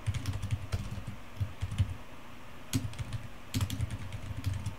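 Typing on a computer keyboard: a run of irregular key clicks, with a short pause about two seconds in before the typing resumes.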